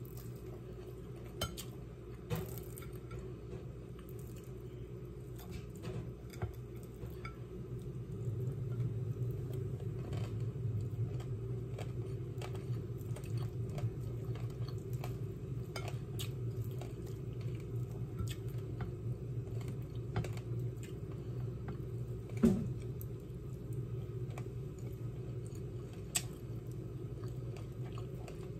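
Someone eating chicken with their hands: chewing, with scattered small clicks and knocks of food and fingers on a plate, the sharpest knock about two-thirds of the way through. Under it runs a steady low hum that grows louder about eight seconds in.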